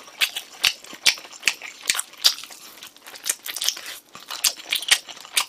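Close-up biting and chewing of glazed Korean fried chicken (dakgangjeong), heard as a run of irregular crunchy clicks. The eater says the pieces are firm and chewy, like eating cartilage.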